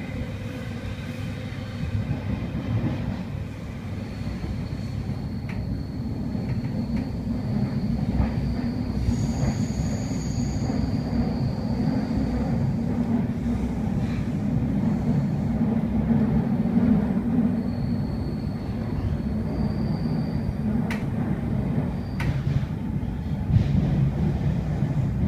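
Sydney Trains S-set electric train running, heard from inside the carriage: a steady rumble of wheels on the rails, with a few clicks and a faint high whine at times.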